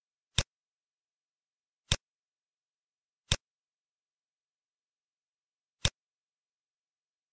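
Four sharp computer mouse clicks, irregularly spaced a second or two apart, with dead silence between them.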